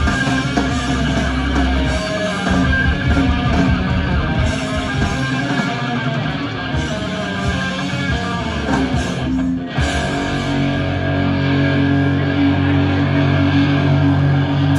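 Live death metal band playing loudly: distorted electric guitars, bass and drums. About two-thirds of the way in the music stops briefly, then resumes with long held low notes.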